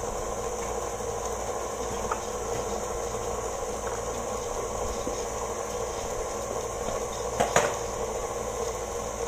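KitchenAid Artisan stand mixer motor running with a steady hum, with a couple of brief knocks about seven and a half seconds in.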